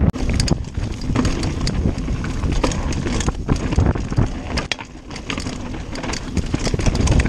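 Empire mountain bike ridden fast over a rough dirt trail: wind noise on the microphone with a steady run of clicks and clatters from the bike jolting over the ground.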